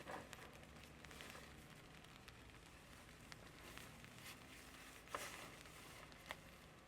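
Faint, scattered drops of rain tapping, over a soft hiss, with two slightly louder taps about five and six seconds in.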